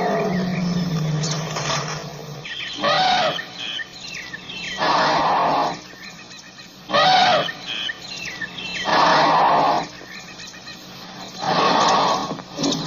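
African elephant calls: a low rumble at the start, then a string of short, loud calls about every two seconds.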